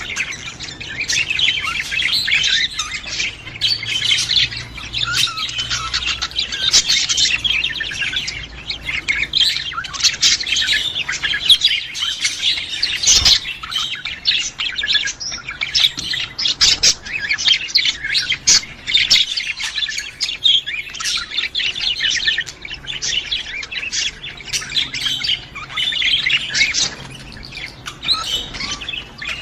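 A group of caged budgerigars chirping and chattering continuously, with rapid high warbled notes and squawks. A single short knock about halfway through.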